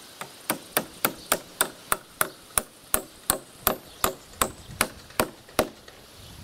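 Steady hammer blows, about three a second, driving a large nail through a steel strap into a wooden log crossbeam; about sixteen strikes that stop shortly before the end.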